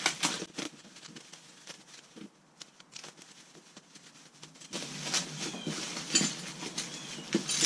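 Cardboard and plastic packaging rustling and crinkling as hands rummage through the box, with a quieter pause in the middle before the rustling picks up again.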